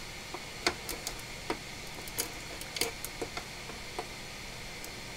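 Irregular light clicks and taps, a dozen or so, as a laptop logic board is handled and repositioned on the bench, over a steady faint hiss.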